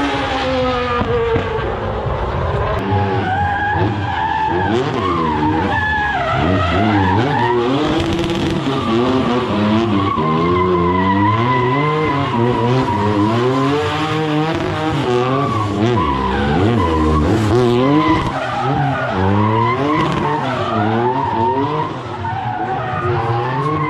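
Formula One car's engine revving up and down over and over while its tyres skid and squeal, laying down smoke. A steady high tyre squeal runs for several seconds in the middle.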